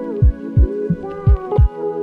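Intro music: held synth chords over a deep kick drum beating about twice a second.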